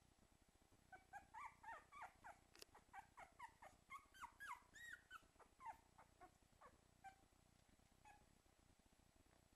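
Newborn Cairn Terrier puppy whimpering in a rapid string of short, high squeaky cries, about three a second, starting about a second in and tailing off after about seven seconds: a young puppy crying because it has lost its way.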